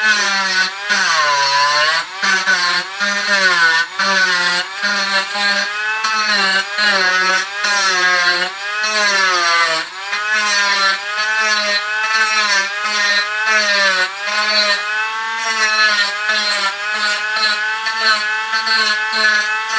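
Dremel rotary tool with a coarse bit grinding wood, trimming off a CNC holding tab. The motor's whine keeps dipping and recovering in pitch as the bit is pressed into the wood and eased off.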